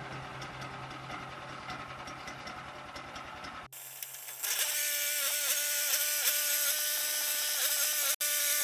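Small gasoline engine of a portable bandsaw mill running steadily with a fast ticking. About a third of the way in the sound cuts off abruptly and a louder, steady whine with a wavering pitch takes over.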